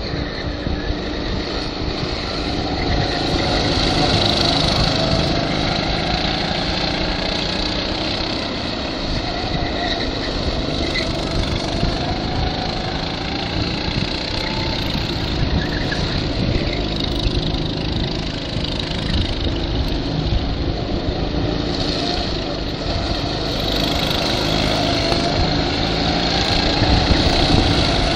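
Several go-kart engines running around a track, their pitch rising and falling as the karts accelerate and slow through the corners. The engines swell louder as karts come past, a few seconds in and again near the end.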